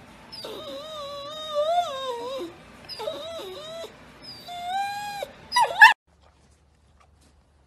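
A boxer dog howling and whining in three long, wavering, high-pitched calls. These end in a short, louder cry that swoops in pitch, and then the sound cuts off abruptly.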